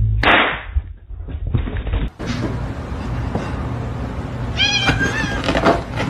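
Domestic cat meowing once, a short pitched call about three-quarters of the way through, after a brief noisy burst at the very start.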